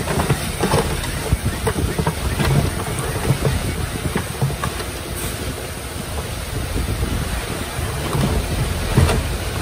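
Komatsu D20P bulldozer at work: a rough, steady machine rumble under irregular knocks and clatter.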